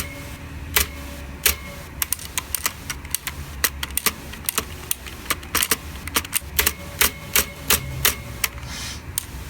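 Keys of a ViewSonic KU520 mechanical keyboard with blue switches being pressed: sharp clicks, a few spaced strokes at first, then a quicker irregular run, some followed by a faint short ring. The ring is the switch springs resonating, a flaw of this keyboard's switches that is most obvious on the spacebar.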